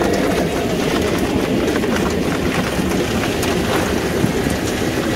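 Steady rushing roar of a propane burner under a crawfish boiling pot, with a light clatter of boiled crawfish and a plastic scoop on a stainless steel dumping table.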